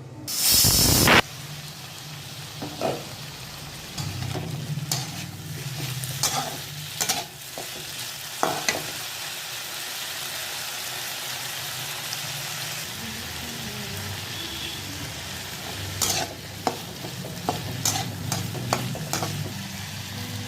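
Food frying in a pan with a steady sizzle, stirred with a utensil that scrapes and knocks against the pan every second or so. A loud burst lasting about a second comes right at the start.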